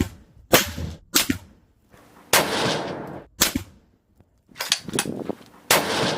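Unsuppressed 6.5 Creedmoor rifle firing a string of sharp, loud shots a second or so apart, each trailing off in echo.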